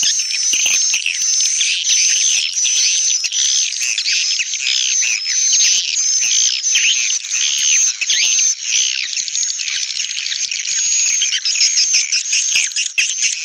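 Recorded swiftlet lure calls of the kind played in swiftlet nest houses: a dense, unbroken stream of overlapping high twittering chirps from edible-nest swiftlets, a call track mixed with a roosting ('inap') track.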